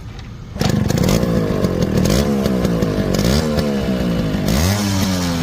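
Yamaha RX 135 two-stroke single-cylinder motorcycle engine, fitted with a muffler, starting about half a second in and then revved up and down in a series of short throttle blips before settling.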